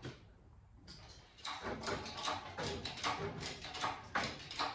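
Hydraulic engine hoist being pumped by hand to lift an engine block on its chains: a regular run of clunks and creaks, about two or three a second, starting about a second and a half in.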